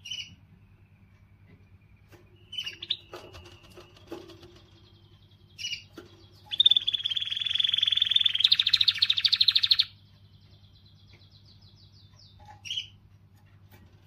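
Domestic canary singing: short chirps a few seconds apart, then a loud, rapid trill lasting about three seconds that steps up in pitch partway through.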